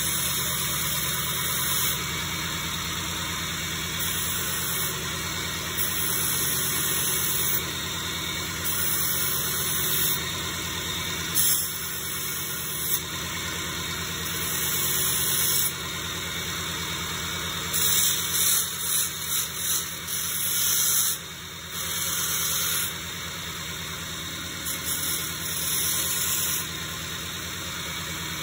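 Belt grinder running with a steady hum while an Kh12MF steel knife blade is pressed to the moving belt pass after pass to sharpen the edge. Each pass is a high hiss lasting a second or two, with short, choppier strokes near the end.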